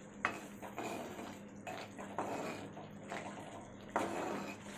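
A steel spoon stirring and scraping thick, wet tomato-onion masala in a kadai, making irregular scrapes and soft wet squelches. The sharper scrapes come just after the start and again about four seconds in.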